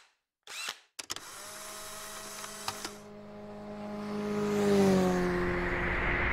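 Logo animation sound effect: a couple of short swishes, then a steady engine-like hum that grows louder, dips slightly in pitch at its loudest point about five seconds in, like a vehicle passing, over a swelling whoosh.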